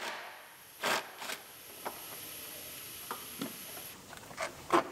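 Plastic air cleaner base being pulled and worked loose in the engine bay: scattered light knocks, rubs and scrapes of plastic against its mounts, about half a dozen over a few seconds.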